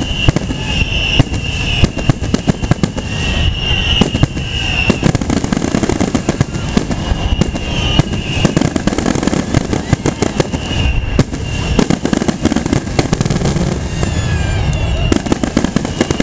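Fireworks display: a rapid, near-continuous barrage of aerial shell bursts and crackling, with a high whistle coming and going over it.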